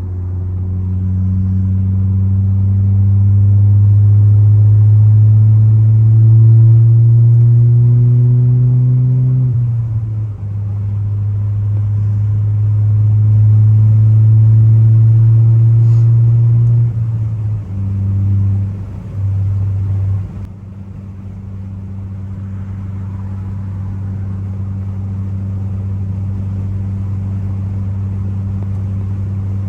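Turbocharged Ford Focus ST engine pulling under load, its note rising slowly, with a shift about ten seconds in, then climbing again. It eases off and changes pitch in short steps, then settles to a steady, quieter drone.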